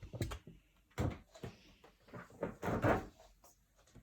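Cardboard shipping boxes being handled on a surface: several knocks and scrapes, the loudest about three seconds in.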